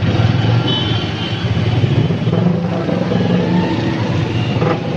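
Street traffic: the steady rumble of vehicle engines running and passing close by.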